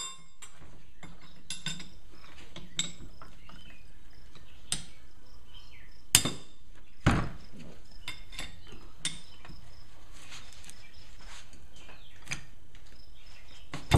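Hand tools clinking and tapping on the steel drive shaft and bearing assembly of a MerCruiser Alpha One outdrive while a stuck nut on the input shaft is worked at, with two sharp hammer blows about six and seven seconds in.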